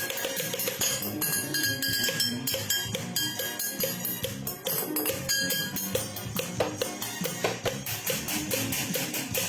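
Music with a busy, steady percussion beat over sustained pitched notes.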